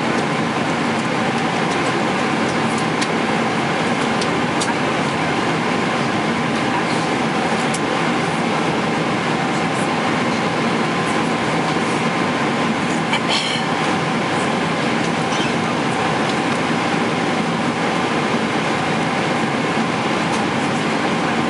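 Steady cabin noise of a Boeing 777-300ER in flight: an even rush of airflow and engine noise with faint steady hums, and a few faint clicks.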